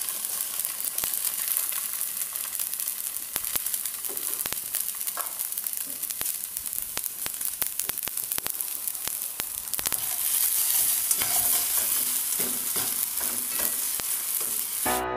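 Fried rice with mixed vegetables and a raw egg sizzling in hot oil in a nonstick pan, with the clicks and scrapes of a spatula stirring it. The sizzle grows louder about ten seconds in and cuts off abruptly at the very end.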